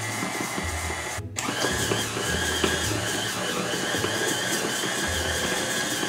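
Electric tilt-head stand mixer running, its beater turning through butter and sugar in a steel bowl with a steady motor whine. There is a brief break about a second in.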